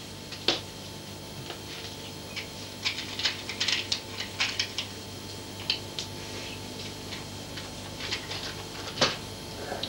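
Scattered small clicks and rustles of hands handling matchsticks at a table as lots are drawn, with a cluster of them in the middle and a single sharper one near the end, over a steady electrical hum.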